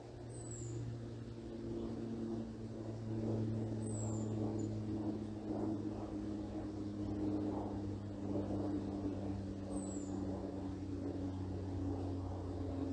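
An aircraft passing overhead: a steady drone of several tones that slowly fall in pitch. Four short, very high, thin falling bird calls sound a few seconds apart above it.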